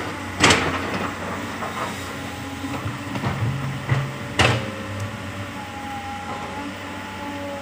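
Komatsu PC200 hydraulic excavator's diesel engine running steadily as it digs soil, with two sharp loud knocks, about half a second in and again about four seconds later, and a few smaller knocks between them.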